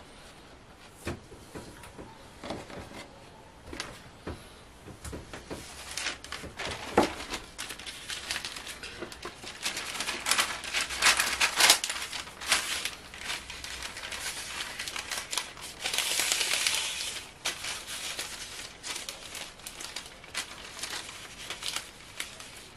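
Parchment baking paper rustling and crinkling as it is handled and folded around baguette loaves on a metal baguette tray, with a few light knocks. The crinkling is densest and loudest in the middle.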